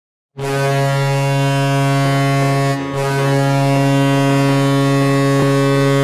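Toronto Maple Leafs goal horn blasting: a loud, deep, steady horn tone that starts just under half a second in, breaks off briefly near three seconds, then sounds again in a second long blast.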